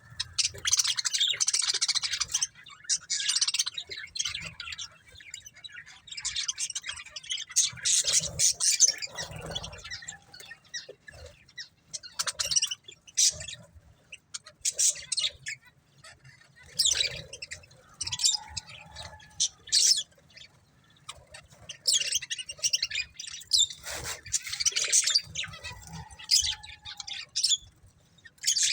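Budgerigars chirping and warbling in quick, high-pitched bouts of a few seconds each, with short pauses between.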